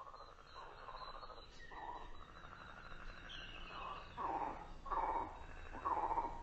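Frogs croaking: a series of short, trilled calls about a second apart that grow louder, the loudest three near the end, forming the opening of an ambient track built on frog sounds.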